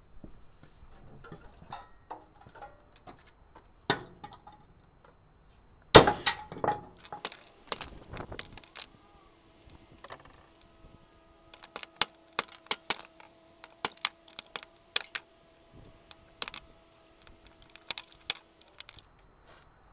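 Sledgehammer blows smashing open a burnt-out Electrolux motor on asphalt, the loudest about six seconds in. Later, many short metallic clinks and jangles as the broken motor parts are handled and pulled apart.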